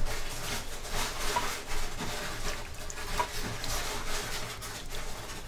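Water splashing in a glass bowl as a hand moves and lifts raw cut potato sticks out of cloudy, starchy rinse water and into a second bowl.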